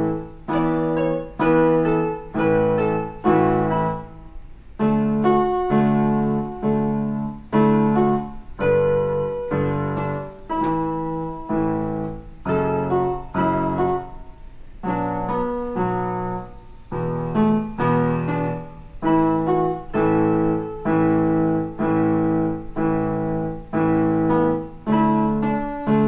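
Portable electronic keyboard on a piano voice, played in block chords: full chords struck one after another, about one to two a second, each dying away before the next.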